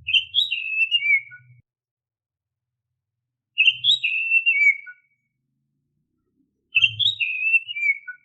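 Oriental magpie-robin (kacer) singing its characteristic whistled phrase three times, each about a second and a half long, with jumps in pitch and ending on a falling note.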